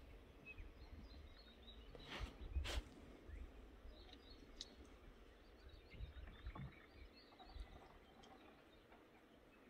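Near silence: faint bird chirps over a low rumble, with a couple of soft rustles a little over two seconds in.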